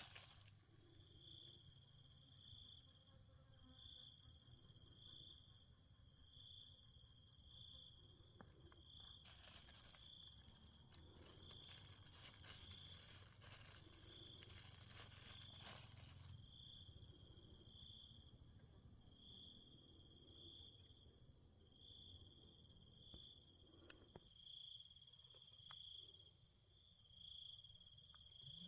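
Faint insects chirping: a steady high trill, with a second high chirp pulsing about once a second.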